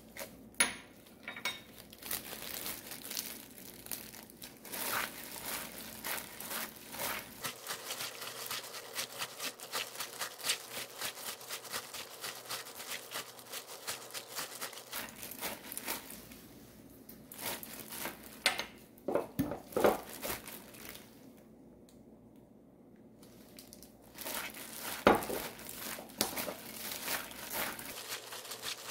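Disposable plastic gloves crinkling as hands toss and knead seasoned cutleaf coneflower greens in a stainless steel bowl: a quick, continuous rustle with a few sharper knocks against the bowl. The rustling stops for a couple of seconds about three-quarters of the way through, then resumes.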